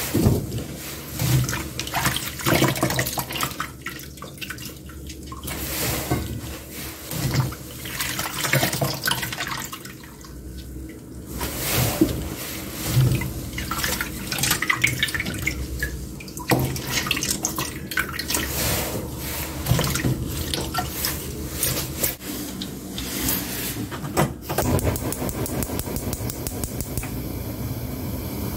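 Water sloshing and splashing in a stainless steel basin as gloved hands swish and squeeze blanched king oyster mushroom pieces, rinsing them in cold water, in irregular bursts.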